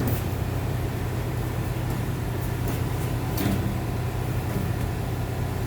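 An engine running at a steady idle, with a couple of light clicks and knocks.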